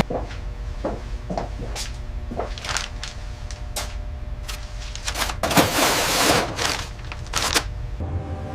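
Irregular knocks and clicks, with a denser rush of clattering noise about two thirds of the way through, over a low steady hum.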